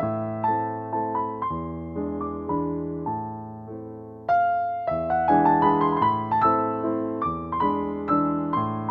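Background piano music: a gentle melody of struck notes over low sustained bass notes, thinning briefly about four seconds in before coming back fuller.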